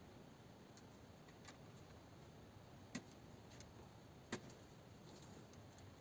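Near silence: faint room tone with a few soft clicks, the two clearest about three seconds and four and a half seconds in.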